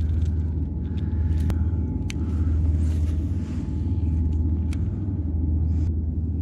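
Steady low rumble with several sharp clicks scattered through it.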